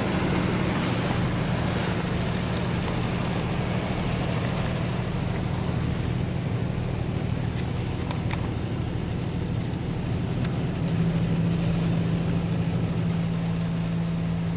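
NuStar Soft Touch Plus automatic car wash running, heard from inside the vehicle: a steady hum of machinery under a hiss of spraying water. A stronger motor tone comes in about eleven seconds in.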